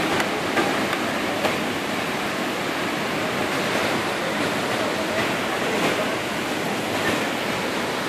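A large waterfall in strong flow: a steady, dense rush of falling water.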